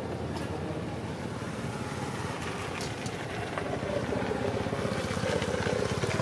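An engine running steadily, a low pulsing drone with a few faint clicks over it; it gets a little louder about halfway through.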